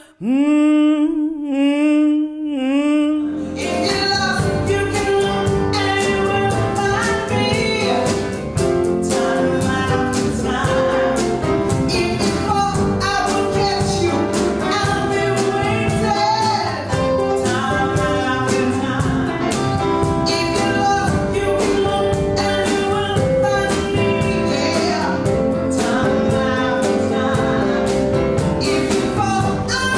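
A woman's voice sings a few sliding notes on its own, then about three and a half seconds in a full song comes in: singing over instrumental backing in a gospel style, playing on at a steady level.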